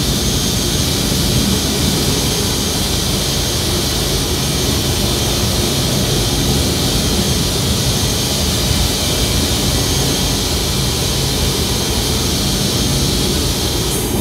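Steady electronic noise soundtrack: a loud, unchanging white-noise hiss with a low rumble beneath it.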